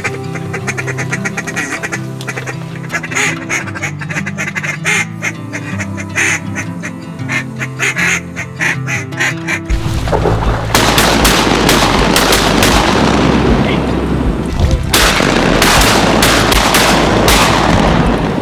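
Duck quacking in a fast chattering run over background music. About ten seconds in, a loud steady rushing noise takes over.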